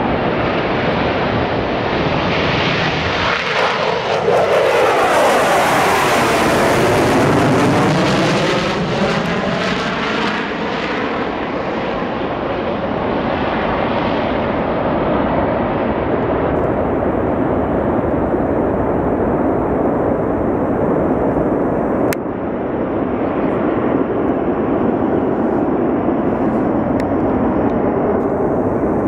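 Military jet taking off. The engine noise is at its loudest about four to eight seconds in as the jet passes, and its pitch sweeps down and back up. It then settles into a duller, steady rumble as the jet climbs away.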